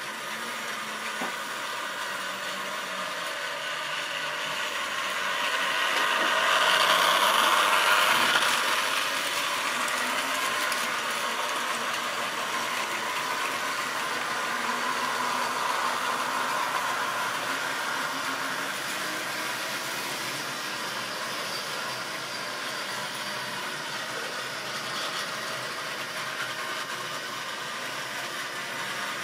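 Model railway trains running on the layout: the whir of small electric locomotive motors and the rattle of wagon wheels on the track, loudest between about six and nine seconds in.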